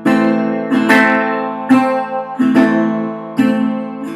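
Republic Resolian 39 resonator guitar strumming chords, a strum about every three-quarters of a second, each chord ringing on.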